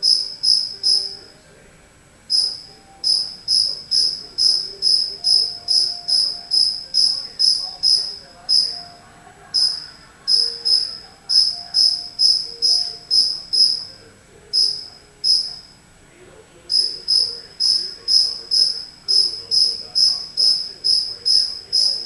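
A cricket chirping, a high, clear chirp repeated about three times a second in runs broken by short pauses of about a second.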